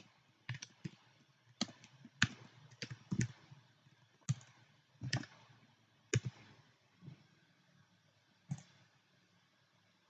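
Computer keyboard keystrokes typed slowly and irregularly, a dozen or so sharp clicks with gaps between them, ending with a single click about eight and a half seconds in.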